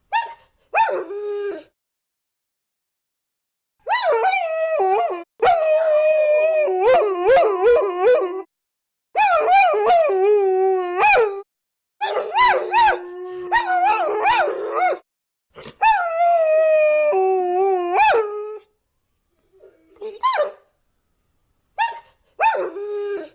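Several dogs howling in a chorus: long wavering howls at different pitches overlap for most of the stretch, with single short howls near the start and near the end and brief silent gaps between.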